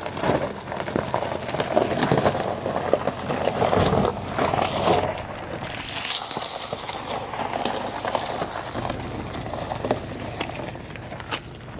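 Jeep WJ Grand Cherokee crawling over a rocky trail: tyres crunching and popping on rocks and gravel, with the engine running underneath. The crunching is loudest in the first five seconds, then eases off.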